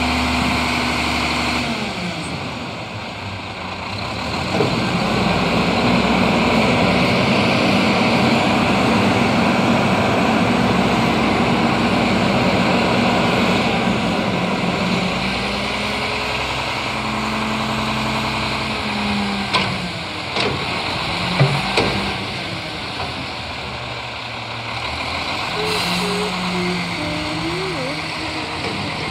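Front-loading garbage truck's diesel engine revving to power the hydraulic arms as they lift a dumpster up over the cab to tip it into the hopper. The engine comes up about four seconds in, and a few sharp knocks and bangs from the dumpster come in the second half.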